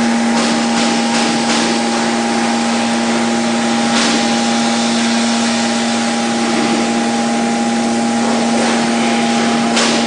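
Hydraulic drive of a metal-chip scrap baler running under load, a steady hum with a higher whine, as the ram pushes the plate up through the compression chamber. A single sharp click about four seconds in.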